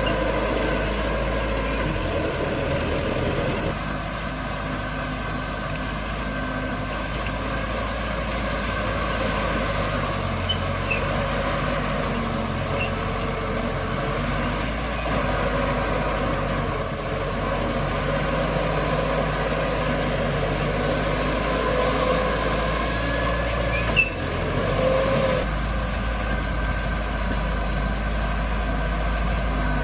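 Heavy diesel earthmoving machinery running steadily under load, with a couple of sharp metallic knocks and a brief squeal.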